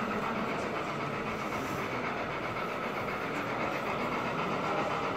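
Gauge 1 model BR 80 steam tank locomotive running along the layout track at speed, a steady running noise over the constant background hum of the exhibition hall.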